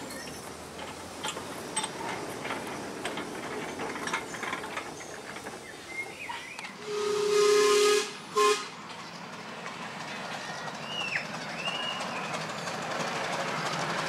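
Steam locomotive whistle on a miniature railway: one steady blast of a little over a second, then a short second toot.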